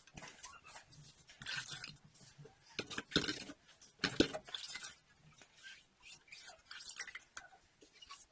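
Irregular handling noises: light clicks, knocks and rubbing of objects being moved, with the sharpest knocks about three and four seconds in.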